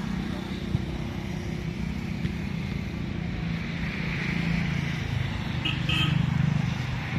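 A motor vehicle's engine running steadily, growing louder about six seconds in.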